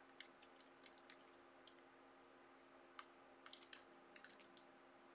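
Near silence: quiet room tone with a low steady hum and a few faint clicks at the computer.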